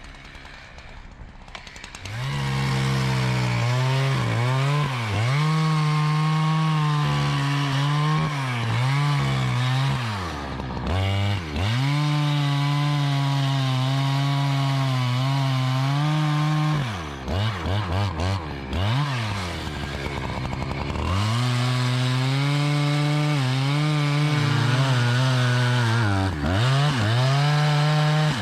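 Husqvarna 365 two-stroke chainsaw cutting timber, starting about two seconds in. It runs at high revs, its pitch sagging again and again under load in the cut and climbing back, with a brief choppy stutter about two-thirds of the way through.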